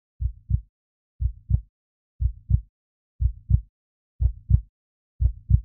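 Heartbeat: a slow, steady lub-dub, two low thumps close together about once a second, six beats in all, with silence between them.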